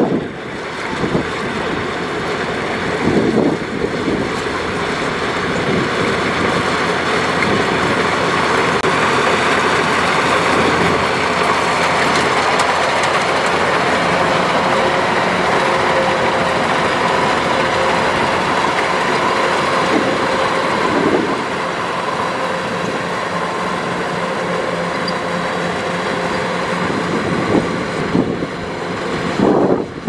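Kubota DC105X rice combine harvester running steadily while cutting and threshing: a continuous engine and machinery drone with a steady hum, easing a little about two thirds of the way through.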